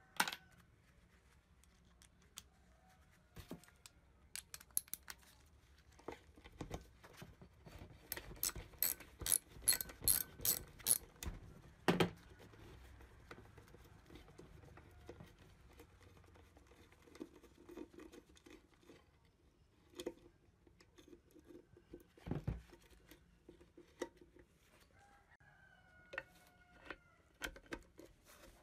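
Metal clinks and knocks from hand tools and the steel parts of an old Endo EWF-9 spring balance being dismantled, with a quick run of clicks about a third of the way in and two louder knocks. A chicken calls briefly in the background a few times.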